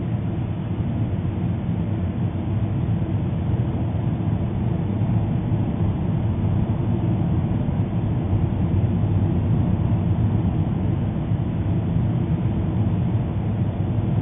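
Steady low rumbling noise with no distinct bangs or changes.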